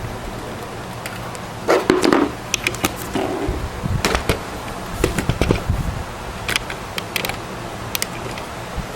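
Scattered clicks, knocks and brief rustling as desktop computer parts are handled, over a steady low hum.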